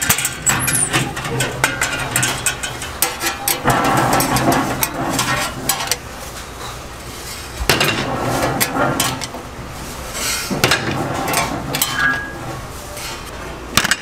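Metal clattering and clicking from an egg-bread oven and its baking tray: the door latch is turned, a tray is worked out of the oven, and metal tongs knock against the metal baking moulds, with many sharp knocks throughout.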